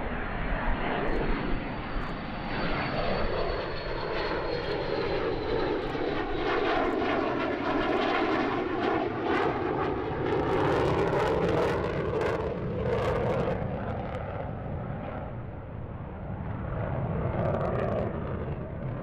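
Saab 37 Viggen jet flying past, its Volvo RM8 afterburning turbofan giving a dense jet noise. A high whine fades away in the first few seconds, and the sound swells and sweeps as the jet goes by, with sharp crackles in the middle.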